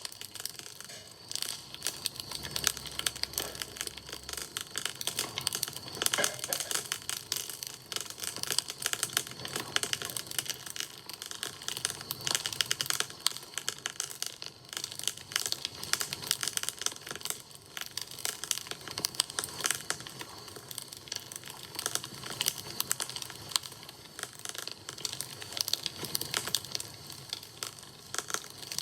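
Wood campfire crackling: a dense, irregular run of small snaps and pops from the burning wood.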